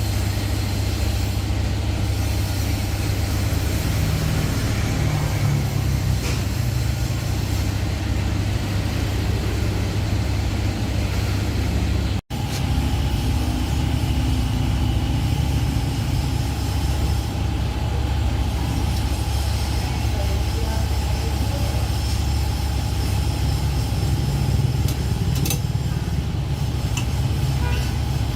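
A steady, low engine or motor rumble that drops out abruptly for an instant about 12 seconds in, then carries on unchanged.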